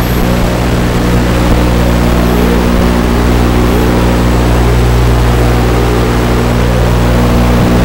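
1/10 scale RC monster truck driving, its motor whine rising and falling with speed over a loud steady hum, picked up by the camera on board.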